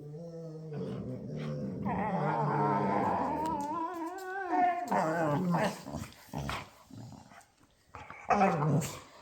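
Labrador retrievers play-growling at each other. A long, wavering growl runs for the first four or five seconds, then shorter growls and yelps follow, with a loud burst near the end.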